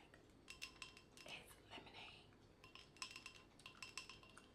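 Light, quick clinking taps on a small hard object, each ringing briefly at the same pitch, with a faint whisper about one and a half seconds in.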